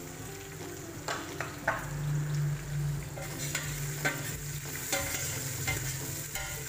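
Onion frying in hot oil in a pan, sizzling as it is stirred, with the utensil scraping and knocking against the pan several times.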